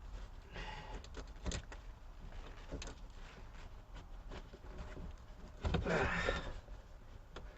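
A snap-off utility knife cutting and scraping through new molded car carpet, with scattered clicks and knocks of handling. A louder rasping cut runs for about a second near the six-second mark.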